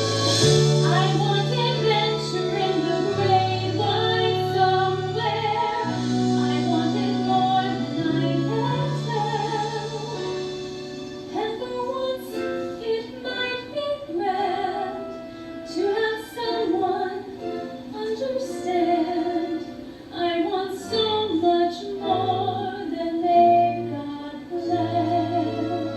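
A woman singing a show tune with instrumental accompaniment, held low notes under the voice.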